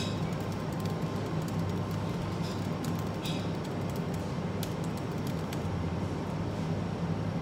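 Typing on a laptop keyboard: quick, irregular key clicks over a steady low hum of café background noise.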